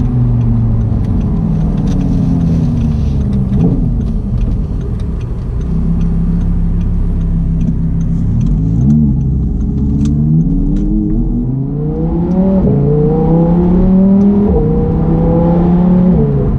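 Audi R8's 5.2-litre V10 through a Cobra Sport valved cat-back exhaust, heard from inside the cabin while driving. The engine note climbs in pitch under acceleration and drops sharply at each gear change, pulling through the gears twice.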